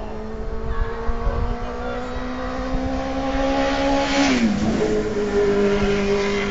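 A motor vehicle's engine hum, creeping up slightly in pitch, then dropping sharply about four seconds in as a brief rush of noise swells, as when a vehicle passes, and holding steady at the lower pitch.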